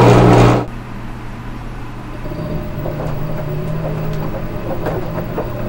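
A short, loud noisy burst in the first half-second, then a steady low hum with faint scattered ticks.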